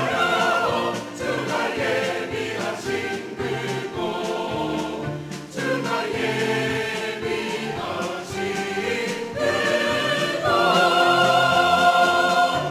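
Mixed church choir singing a hymn in Korean with piano accompaniment, in long held phrases. The voices swell into a loud sustained chord in the last couple of seconds.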